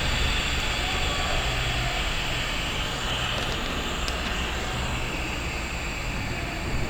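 Steady rushing, hissing airflow with a low hum underneath, from the fire-detection training rig while a fire is simulated at its smoke detector.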